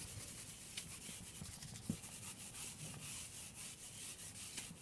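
Faint scratchy strokes of handwriting: a pen moving in short, quick strokes across the writing surface.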